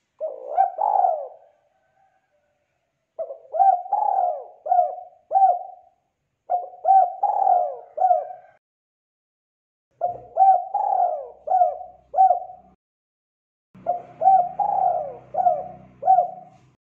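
Spotted dove cooing: five phrases, each a run of three to five short coos, with pauses of about one to two seconds between them.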